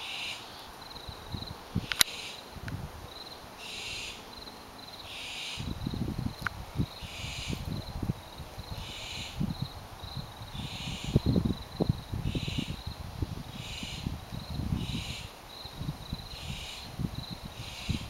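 Barn owls giving repeated hissing calls, each about half a second long, one every second or so at uneven intervals, over a faint steady cricket trill. A low wind rumble on the microphone joins about five seconds in.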